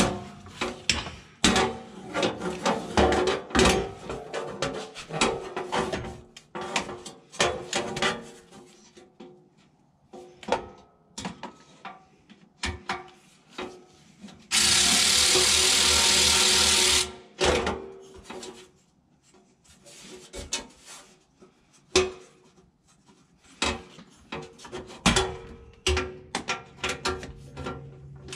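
Ratcheting clicks and tool knocks as bolts on the generator's blower housing are turned with a ratchet and extension. Midway, a cordless ratchet runs steadily for about two and a half seconds.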